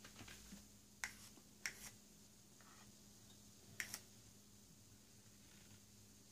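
Near silence broken by about four faint clicks, the last two close together: a white plastic utensil tapping against a small cup.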